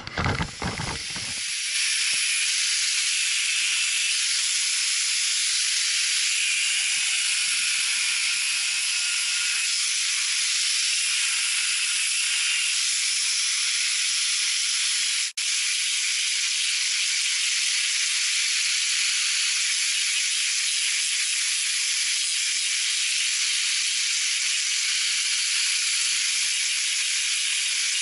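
Angle grinder cutting metal: a loud, steady hiss that starts about a second and a half in and holds, broken once for a moment about halfway through.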